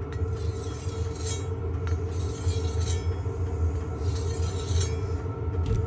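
A knife edge scraped across a sharpening stone in a few short strokes to dull it, over a steady low hum.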